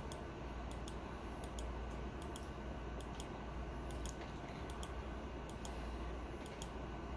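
Repeated sharp clicks on a laptop, paging quickly through photos, about two or three a second, over a steady low hum.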